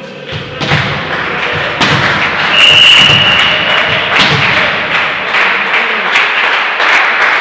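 Ball thumps and loud, echoing hall noise from a match in play, with a referee's whistle blown once, about a second long, two and a half seconds in.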